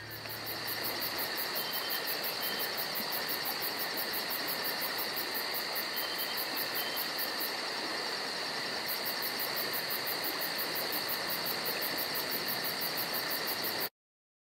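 Crickets or other insects trilling steadily, with a fast, even pulsing high chirp over a constant hiss. It cuts off abruptly near the end.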